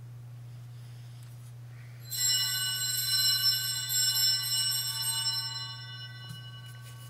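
Altar bells ring out about two seconds in, a bright metallic ringing of many high tones that fades away over about four seconds, marking the priest's communion.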